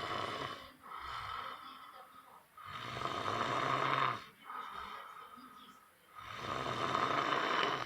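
A person snoring: rasping snores on each breath, the two loudest about three seconds in and near the end, with softer snoring breaths between.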